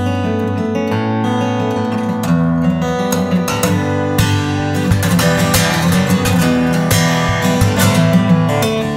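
Solo acoustic guitar music, with plucked notes and chords.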